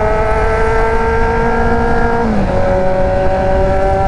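Yamaha XJ6's 600 cc inline-four running through an aftermarket Atalla exhaust under way, its note rising slowly for about two seconds, then dropping and holding steady.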